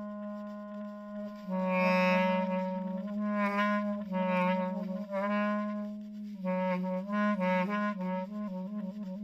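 Background music: a melody of held, wavering notes over a steady sustained drone, with the melody coming in about a second and a half in.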